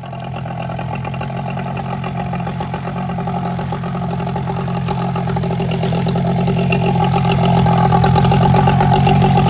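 Tohatsu outboard motor running steadily with a modified lower unit, its brass chopper propeller spinning half out of the water and splashing. The engine grows a little louder toward the end.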